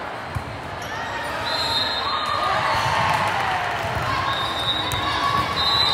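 Indoor volleyball match in an echoing gym: indistinct voices from players and spectators, a few brief high squeaks, and one sharp smack of a ball just after the start.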